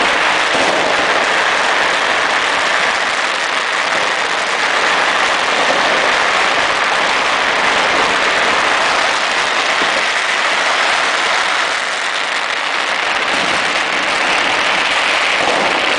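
Massed firecrackers going off all at once, an unbroken, even crackle at a steady level with no single bang standing out.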